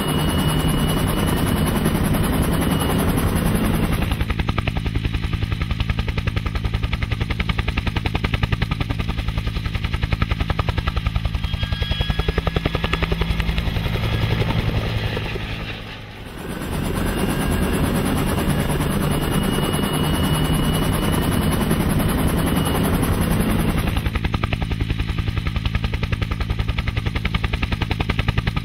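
Helicopter rotors chopping steadily in a fast, even beat, dipping briefly about halfway through and then coming back.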